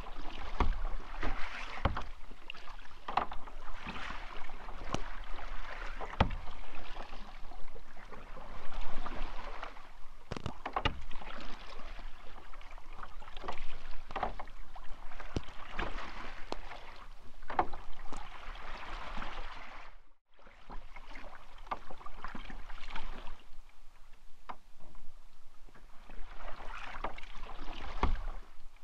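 Kayak paddling: the paddle blades dip and splash in a steady stroke rhythm, with water running off them and occasional sharp knocks. The sound drops out briefly about two-thirds of the way through.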